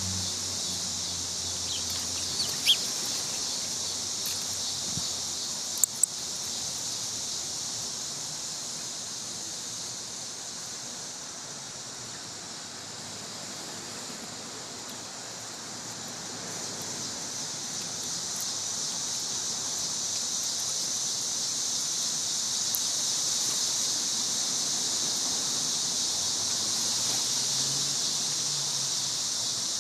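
Cicadas droning in a steady high hiss that grows louder through the second half, with a few short sharp clicks about three and six seconds in.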